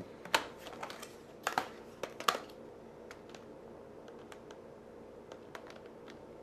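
Plastic clicks and knocks as the battery of an Acer Aspire One netbook is slid in and latched: a few sharp clicks in the first two and a half seconds, then a run of fainter light ticks.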